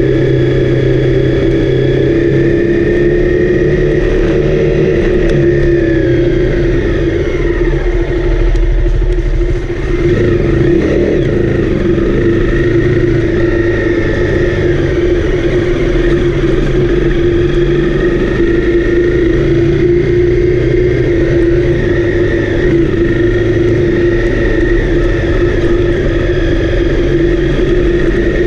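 Honda CRF250L single-cylinder four-stroke motorcycle engine running under way at steady revs, easing off about a third of the way through and picking up again.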